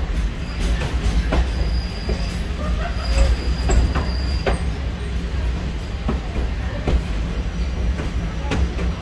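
Railroad car wheels rolling on the track: a steady low rumble with irregular sharp clicks as the wheels pass over the rails, and a thin high wheel squeal for about two seconds near the middle.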